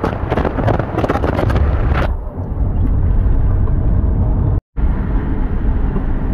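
Road noise from a moving vehicle: wind buffeting the microphone over a low rumble for the first two seconds, then the wind cuts off abruptly, leaving a steady low engine-and-tyre rumble. A split-second dropout to silence comes a little past the middle.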